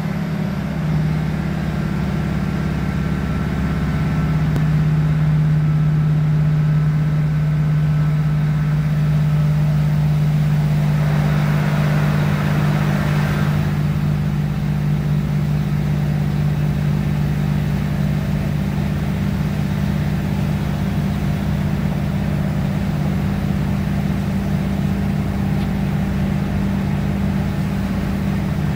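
Interior of a British Rail Class 156 Super Sprinter diesel multiple unit under way: the underfloor six-cylinder Cummins diesel engine and Voith hydraulic transmission give a steady low drone, with running noise from the wheels and track. A brief rushing noise swells and fades about halfway through.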